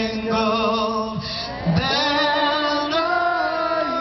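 A woman singing a slow melody in long held notes with vibrato, with a rising slide into a new note a little under two seconds in.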